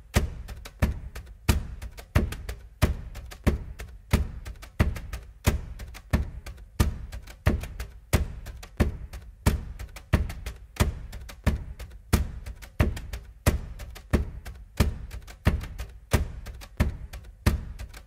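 Background music with a steady percussive beat: a deep thud about every two-thirds of a second, with lighter taps between.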